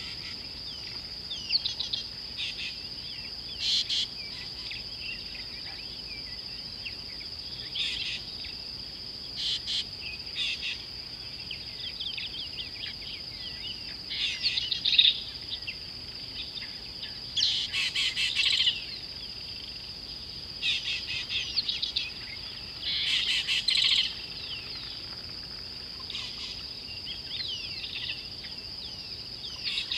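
A steady, high-pitched insect drone, with wild birds chirping and calling over it in repeated short bursts.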